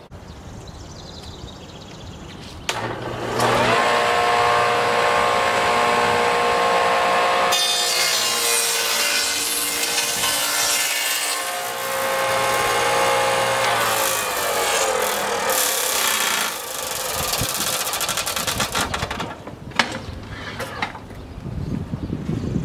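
Craftsman table saw with a stacked dado blade starting up and winding up to speed, running steadily, then cutting a dado through a laminated wood board pushed on a sled, which turns its tone into a rough sawing noise. The saw is then switched off and coasts down with a falling pitch, followed by a few knocks as the board is handled.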